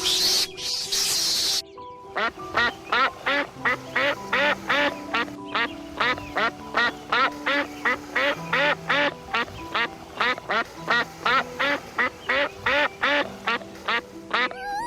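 A duck quacking over and over in a fast, even series, about two and a half quacks a second, after a hissing noise in the first second and a half.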